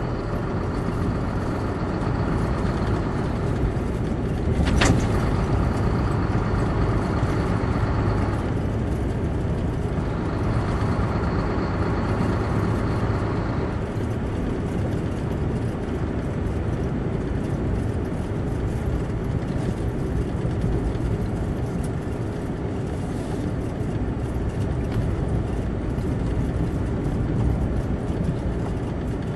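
Steady engine hum and tyre rumble of a vehicle driving on a winter dirt road, heard from inside, with one sharp knock about five seconds in and a faint whine over the first half.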